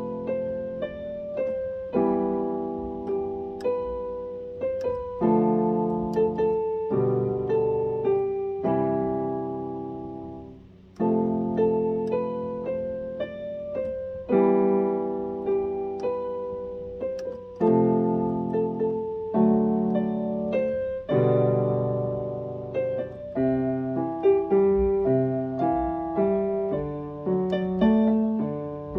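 Piano-toned keyboard playing a slow, gentle melody over chords, each chord struck and left to fade. It dies away briefly about ten seconds in, then resumes, with quicker notes toward the end.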